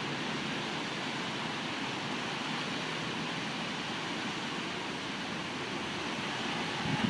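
Steady rushing noise of a strong wind and rain storm, even throughout.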